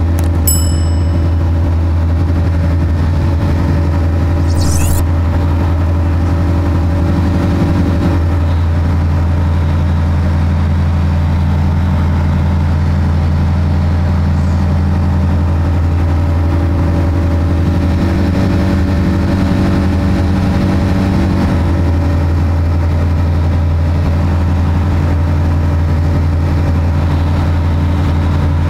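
Diamond DA20 light aircraft's four-cylinder piston engine and propeller at takeoff power, a steady loud drone heard from inside the cockpit through the takeoff roll and climb-out.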